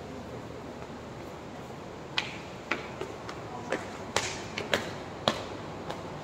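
Footsteps in sandals on hard stairs and a polished tiled floor: a string of sharp, uneven clicks about half a second apart, starting about two seconds in, over a faint steady room hum.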